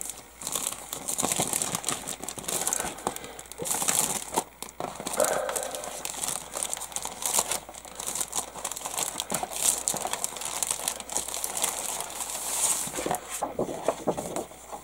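Clear plastic bag crinkling and rustling in irregular handfuls as it is worked open and a decal sheet is slid out of it.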